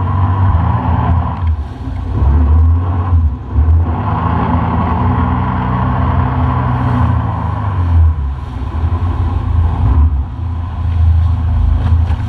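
Engine of a small motorboat running at speed, its pitch rising and falling as the throttle changes, over the rush of water and spray along the hull.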